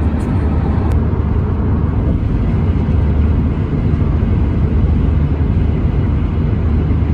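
Steady low rumble of road and engine noise inside a moving car, with no clear changes.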